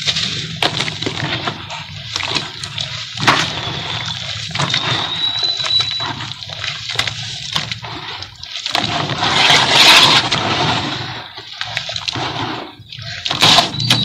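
Hands sloshing and squelching a wet sand-and-cement slurry in a plastic tub. A run of short splats gives way to a louder rushing surge about nine seconds in.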